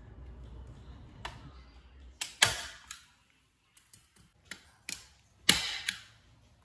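A low rumble, then a series of sharp clicks and knocks at uneven intervals, the loudest about two and a half and five and a half seconds in.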